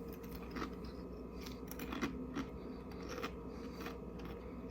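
Faint crunching of a person chewing thick kettle-cooked potato chips, a scatter of small crisp cracks.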